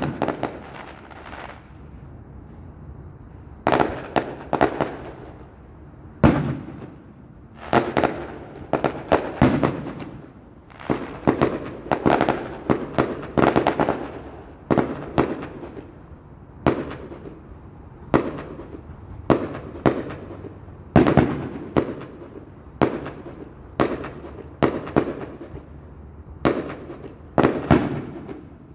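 Aerial fireworks bursting: an irregular string of sharp bangs, often several in quick succession, some trailed by crackling, with a short lull a couple of seconds in.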